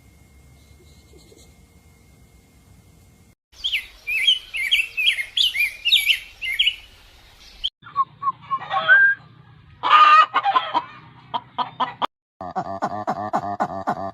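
A run of short animal-call clips: after a faint opening, small birds chirping rapidly in a high flurry, then louder fowl calls, and near the end a pulsing call held at one pitch.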